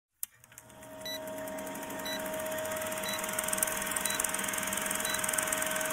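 A short high electronic beep repeating about once a second over a steady hum and hiss, which swells up after a click at the start.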